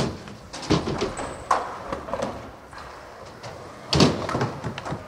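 Skateboards knocking and slapping on wooden ramps and the floor, a few sharp hits echoing in a large hall, the loudest about four seconds in.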